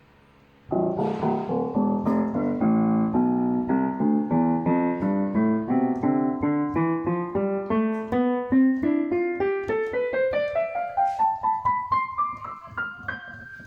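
KA90 electronic keyboard with a piano voice played one note after another, climbing steadily up the keys from low to high at about three notes a second, starting just under a second in and getting softer near the end.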